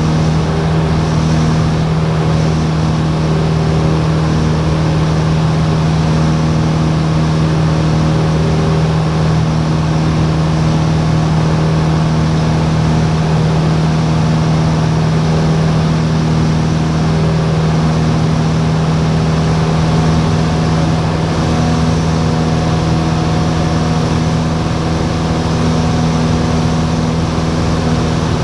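Single propeller engine of a light aircraft droning steadily in flight, heard inside the cabin: a loud, even low hum that holds the same pitch throughout.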